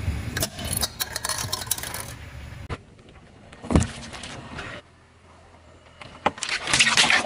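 Car tyres rolling over and crushing objects on pavement: a run of plastic cracks and crunches, one loud pop just before four seconds in as a drink carton bursts, and more crackling and crunching near the end.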